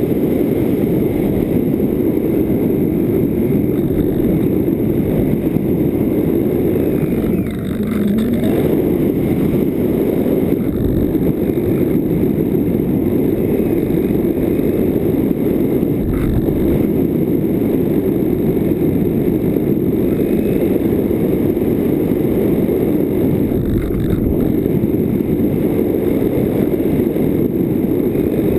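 Steady rushing drone of an RC glider in flight with its electric pusher motor and propeller running, with wind rushing over the onboard camera's microphone; the level dips briefly about eight seconds in.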